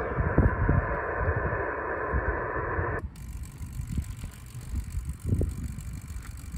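Receiver hiss from a Yaesu FT-991A HF transceiver, held to the voice range. It cuts off suddenly about three seconds in as the radio is switched from the 40 m band to the 80 m band, leaving a fainter hiss. Low thumps and rumble run underneath.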